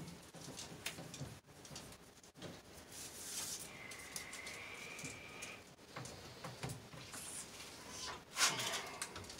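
Romex cable being handled and its plastic outer sheathing ripped off by hand: rustling, scraping and small clicks, with a thin steady squeak for about two seconds in the middle and a louder scrape near the end.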